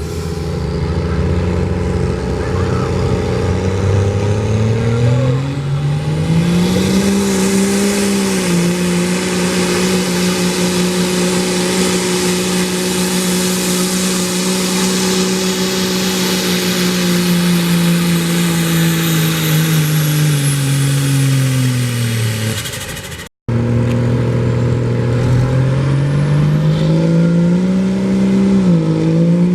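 Open-class diesel pulling truck engine under full load. The revs climb over a few seconds and hold steady for about ten seconds with a loud high hiss over the engine note, then fall away. After an abrupt cut, a diesel engine's revs climb again for another run.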